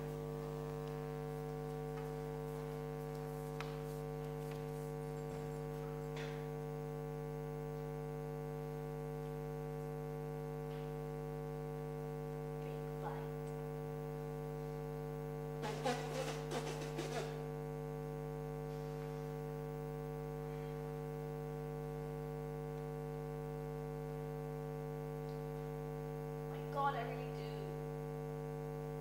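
Steady electrical mains hum made of several layered tones. A short flurry of clicks and knocks comes a little past halfway, and a brief falling squeak comes near the end.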